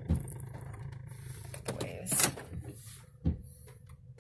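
Low steady rumble inside a car cabin, with a dull thump near the start and another about three seconds in, and a brief rustle of handling noise around two seconds in.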